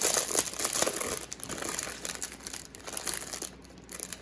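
Plastic packaging around diamond-painting drills crinkling and crackling as it is handled and torn open, busiest in the first second and a half and thinning out toward the end.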